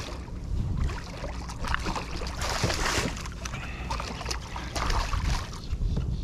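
A hooked drum thrashing and splashing at the water's surface beside a kayak as it is brought to the landing net, in repeated bursts with a bigger splash about two and a half seconds in.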